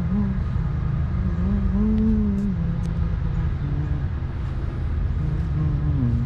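Ford F-series pickup's engine running with the hood open, a steady low rumble whose pitch rises and falls once about two seconds in and dips again near the end.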